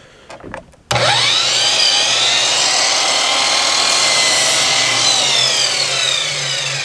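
Sliding chop saw (miter saw) motor switched on about a second in, spinning the blade up with a rising whine, running steadily as it cuts through a board, then winding down with a falling pitch near the end.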